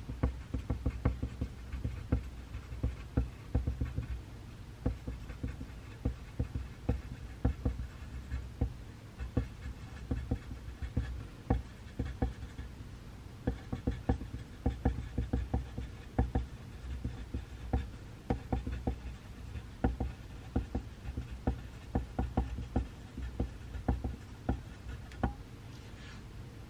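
Pencil writing on paper at a desk: a quick, irregular run of short strokes and taps, several a second.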